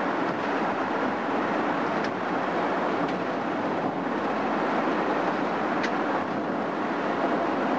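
Steady road noise inside a car cruising on the interstate at about 65 mph: tyres on the pavement, wind and engine blending into an even rush.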